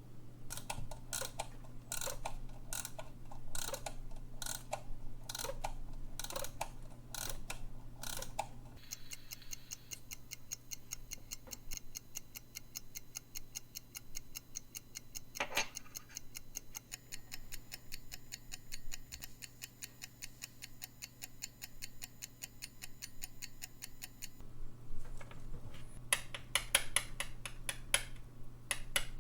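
Vintage Jaeger-LeCoultre alarm clock movement ticking steadily, freshly serviced and running. The ticking changes to a finer, denser pattern after about nine seconds and back to sharper ticks near the end, with one louder click about halfway.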